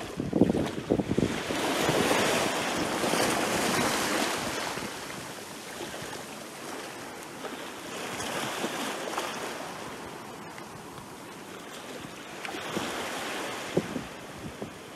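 Small sea waves breaking at the shoreline close by, foam splashing and washing up the beach and draining back. The surges rise and fall about every five seconds, with a crackle of splashes at the start.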